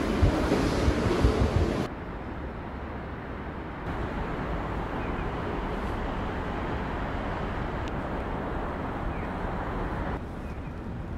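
Louder underground-passage ambience that cuts off sharply about two seconds in, followed by a steady outdoor city background hum with wind on the microphone.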